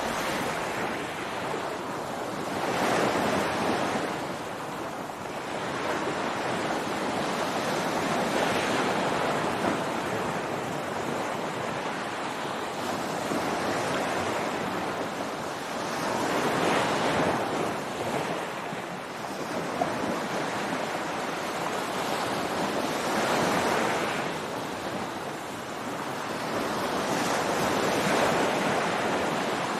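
Ocean waves breaking and washing up on a beach, a steady rush of surf that swells and eases with each wave every few seconds.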